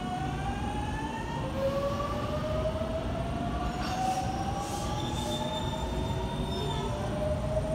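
A JR Kyushu 811 series electric train pulls into the platform: a rumble of wheels on rail, with several whining tones that slowly rise in pitch. A few short hisses come about four to five seconds in, and a higher whine joins briefly after them.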